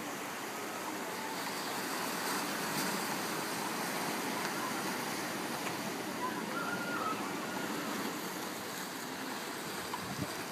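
Steady wash of small waves breaking and swirling over shoreline rocks, an even hiss of surf.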